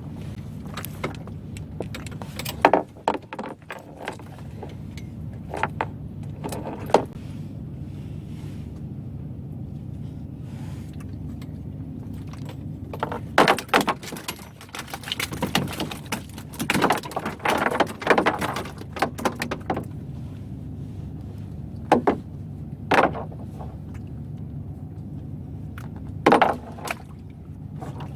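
Small 9.8 hp outboard motor running steadily, with frequent short knocks and rattles over it, a busy cluster of them around the middle.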